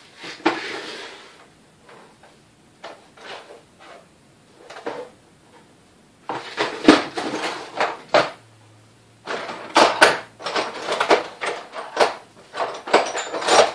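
Metal hand tools clinking and clattering as they are rummaged through to find a small pin punch: scattered knocks at first, then a busy run of rattles and clinks in the second half.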